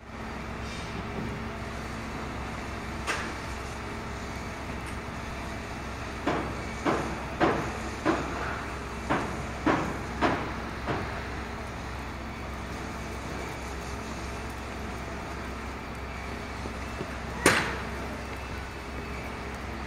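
Construction site noise: a steady low machinery hum under sharp knocks, with a run of about eight knocks roughly two a second a few seconds in, and one loud bang near the end.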